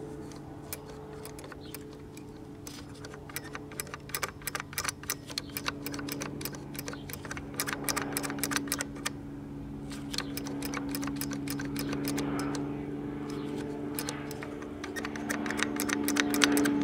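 Runs of small mechanical clicks from a tube TV's remote-control mechanism being worked by hand. Each click steps the electromagnet-driven ratchet and gears that turn the volume and hue pots. The clicks are densest about four to nine seconds in and again near the end, over a steady hum.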